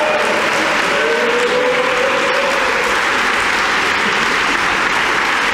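Audience applauding steadily, with a few voices calling out over the clapping about a second in.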